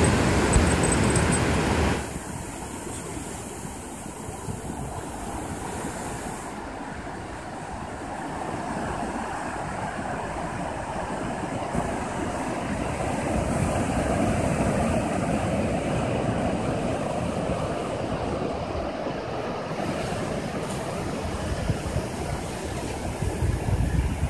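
Ocean surf breaking and washing up the beach in a steady rush, with wind on the microphone that is loudest for the first two seconds.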